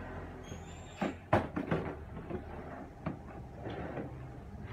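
Hard plastic DeWalt tool carrying case handled on a counter: a few sharp clunks and clicks, the loudest about a second in, followed by lighter knocks.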